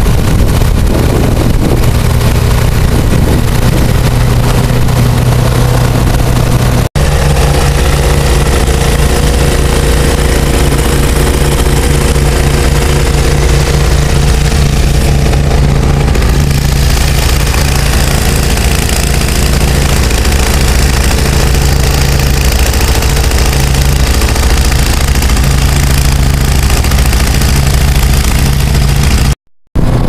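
Case 446 garden tractor engine running steadily while driving its front-mounted snowblower. The sound cuts out briefly about seven seconds in and again just before the end.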